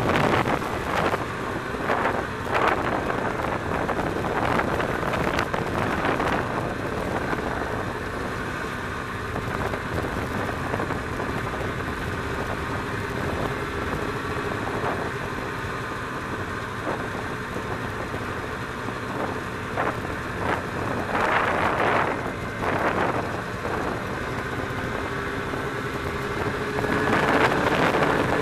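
Snowmobile engine running steadily under way, with wind rushing over the microphone in gusts that grow louder near the end.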